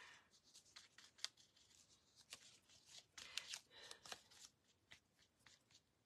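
Faint scattered rustles and light taps of small pieces of corrugated cardboard being picked up and handled; they die away near the end.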